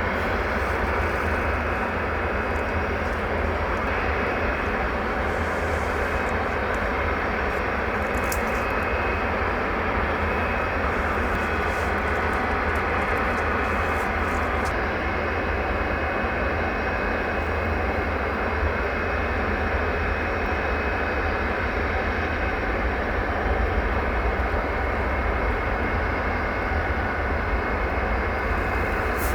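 Jet airliner engines running steadily, with a faint high whine over the rumble.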